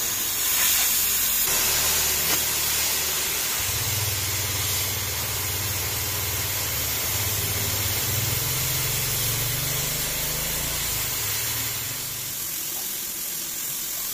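Oxy-fuel cutting torch hissing steadily as its flame cuts the edge of a steel auger flight turning in a lathe, over a low machine hum that eases off near the end.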